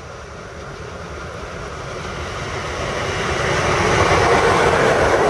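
Electric locomotive-hauled regional passenger train approaching and passing on the nearby track. Its wheel and rail rumble grows steadily louder and is loudest in the last couple of seconds.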